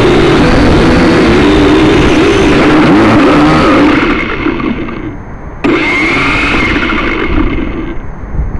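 Small camera drone's electric motors and propellers buzzing at close range with a wavering pitch and a rushing noise, heard through the drone's own camera while it lies tipped on the ground after a crash. The buzz is loud at first, falls away about four seconds in, surges back suddenly a moment later, then dies down near the end.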